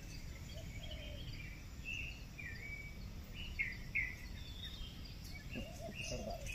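Faint, steady low rumble of a rockfall sliding down Mount Merapi's lava dome, with several short bird chirps over it in the middle.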